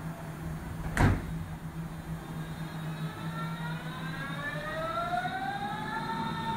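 Berlin S-Bahn electric train pulling away: after a sharp knock about a second in, its traction motors start a whine of several tones that rises in pitch as it accelerates and then levels off near the end, over a steady low hum.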